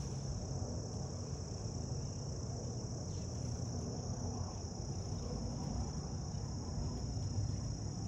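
Steady, unbroken high-pitched chorus of singing insects, over a low background rumble.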